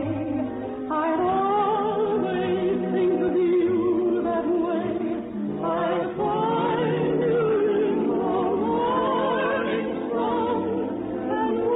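Radio-show music: sustained singing with a wide vibrato over sustained accompaniment, the voices swelling and shifting pitch phrase by phrase.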